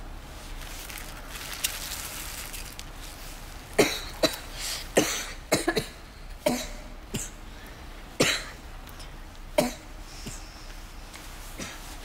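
A teenager's fit of coughing, brought on by smoking a cigarette: a run of short, sharp coughs starting about four seconds in and lasting some six seconds.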